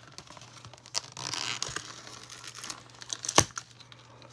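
Doll fashion-pack packaging being handled and crinkled while a small accessory is worked free of its fastening, with one sharp click about three and a half seconds in.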